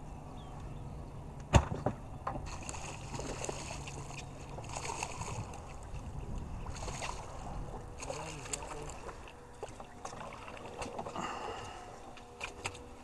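Water splashing and sloshing beside a fishing boat as a hooked fish is brought thrashing to the surface, over the low hum of the idling boat motor. One sharp knock about a second and a half in.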